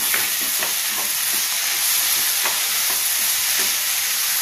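Bitter gourd and potato palya sizzling in a pan with a steady hiss, while a spatula stirs and scrapes through it in short strokes.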